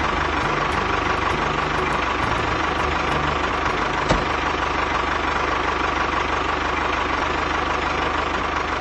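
Small engine of a DIY mini tractor running steadily at a fast, even beat, with a single sharp knock about four seconds in.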